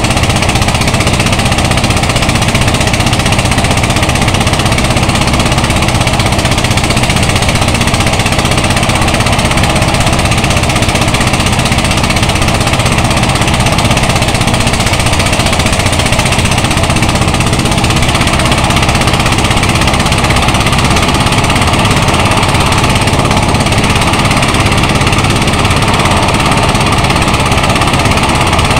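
Engine-driven portable rice thresher running steadily while bundles of rice stalks are fed into its threshing drum: a loud, unbroken mechanical drone.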